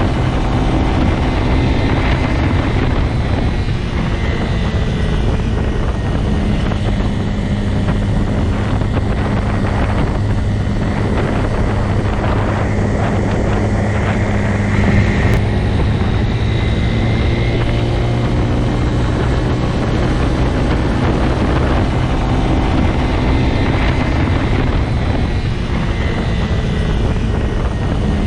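Motorcycle engine running at a steady, even pitch with no large revs, a constant low drone.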